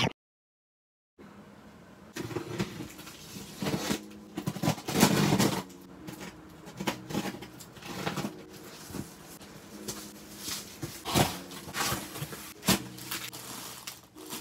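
Unboxing: packing tape cut and pulled off a cardboard box, the flaps scraping, then plastic bags crinkling as the squishy toys inside are handled, in irregular rustles and sharp crackles, loudest about five seconds in. The sound is muffled.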